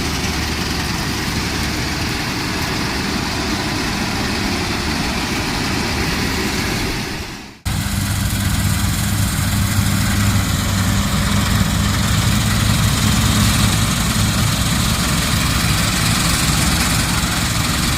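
Sparry 8060 combine harvester's engine running steadily under working load. About seven and a half seconds in the sound dips away and cuts back in abruptly, louder and deeper.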